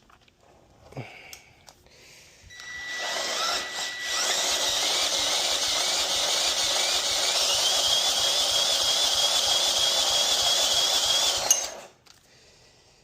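A Scag walk-behind mower's four-stroke engine being cranked over by its electric starter for about nine seconds during a compression test: a steady starter whine over an even beat of compression strokes, several a second, cutting off sharply near the end. The gauge reads very low compression.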